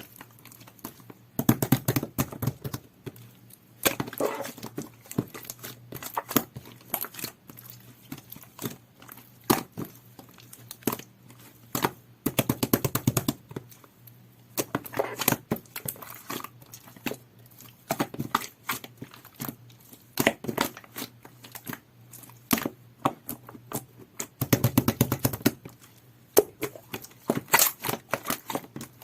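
Two-layer jelly-textured slime being squeezed and pressed by hand, making sticky clicks and crackling pops in irregular bursts, with denser runs of crackles every few seconds.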